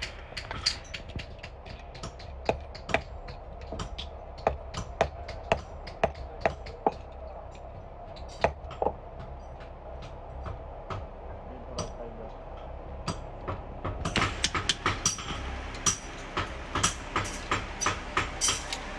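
Irregular metal clinks and taps as steel padlock parts are handled and fitted together by hand, some ringing briefly. The clicks come thicker and sharper in the last few seconds, over a low steady hum.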